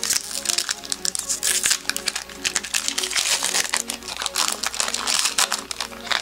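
Foil wrapper of a Magic: The Gathering Core Set 2020 booster pack being torn open and crinkled by hand, a dense run of rapid crackles, loudest in the middle as the wrapper is pulled back from the cards.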